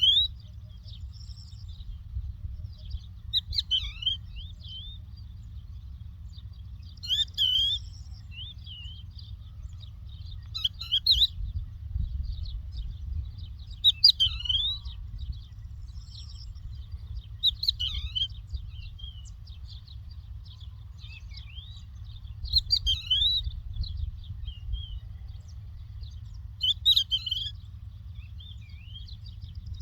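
A lark singing short, repeated phrases of a few quick chirping notes, one phrase about every three to four seconds, over a low steady rumble.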